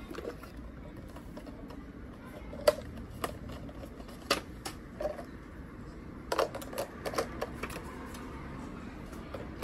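Scattered light clicks and taps of unpacking: a drip coffee maker's parts and packaging being handled. A few single ticks early on, then a quicker cluster of them around six to eight seconds in.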